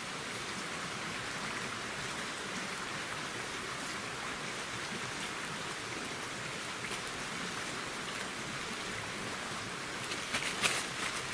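Steady hiss of running water from a woodland stream. About ten seconds in, a plastic bag crinkles sharply as it is scrunched up in gloved hands.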